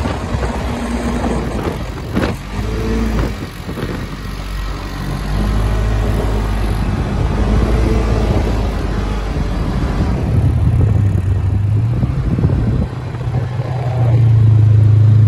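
Quad bike (ATV) engines running and revving unevenly while driving over soft sand; about ten seconds in the engine note steadies, and it grows louder near the end.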